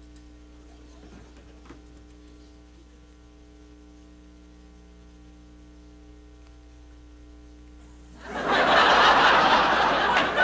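Faint room tone with a steady mains-like hum, then about eight seconds in a studio audience breaks into loud laughter that carries on.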